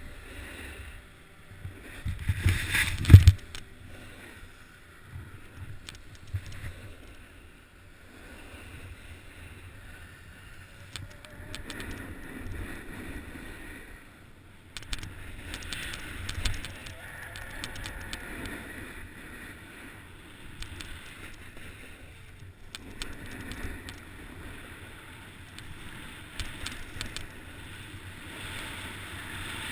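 Skis sliding and carving over packed snow, with wind rushing on the microphone of a camera worn while skiing downhill. A loud rush ends in a sharp thump about three seconds in.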